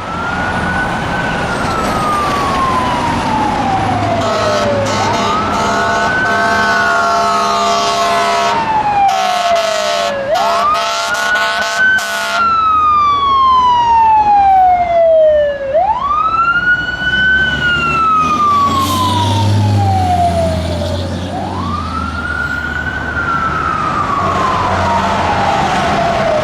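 A 1999 Pierce fire engine's siren wailing, rising quickly and falling slowly about every five to six seconds. From about five seconds in to about twelve seconds in, its air horns blast over the siren, with a few short breaks.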